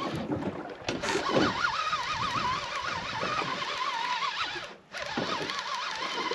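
Fishing reel being wound in against a hooked fish, giving a thin squeaky whine that rises and falls about three times a second, in time with the turns of the handle. The winding stops for a moment about three-quarters of the way through, then starts again.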